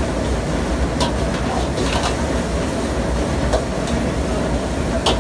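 Metal ladle scraping and clanking against a wok as a large load of fried rice is stir-fried, the clanks coming irregularly about every second, over the steady rushing noise of the gas wok burner.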